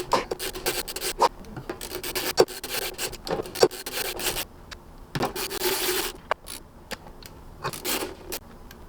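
Wood screws being driven by hand with a screwdriver into a Realistic Nova 8 speaker cabinet to fasten a driver: repeated rasping turns as the threads bite into the wood, with small clicks between strokes and one longer turn near the middle.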